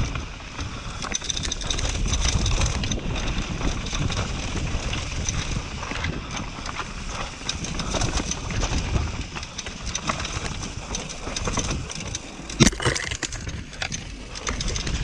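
Mountain bike riding fast down a loose rocky trail: tyres crunching over gravel and stones and the bike rattling over bumps, with wind buffeting the microphone. About twelve and a half seconds in a single sharp knock stands out, the loudest moment.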